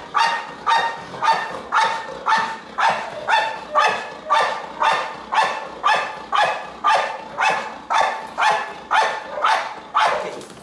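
A Belgian Malinois protection dog barking at a decoy holding a bite sleeve, a steady guard-bark exercise. The barks are loud and evenly spaced, about two a second, and stop at the very end.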